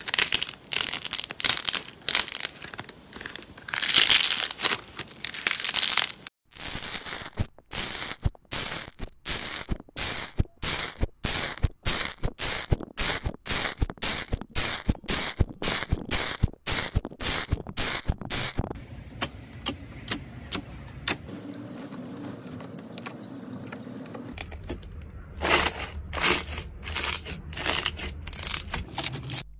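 Slime being worked: crunchy, crackling squishes as thick foam slime is squeezed by hand, then a long run of quick sharp pops, about three or four a second, as a tool presses into fluffy foam slime. Softer crinkly squishing follows near the end.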